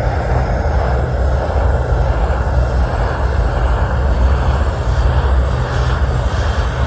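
Propane roofing torch burning steadily, a constant rushing flame noise with a heavy low rumble.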